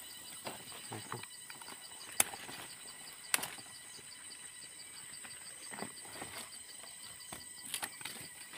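Two sharp cracks, about two and three and a half seconds in, as green plant stalks are cut with a blade, with a few fainter knocks of handled foliage. Insects chirp steadily and high-pitched throughout.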